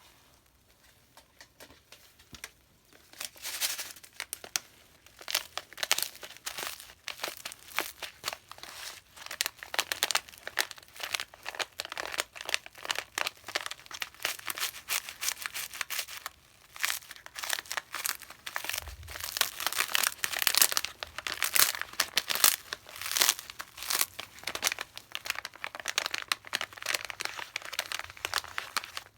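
Crackling of Pinalen cleaner: a dense, fast run of small crackles and pops that starts about three seconds in, with a brief lull around the middle.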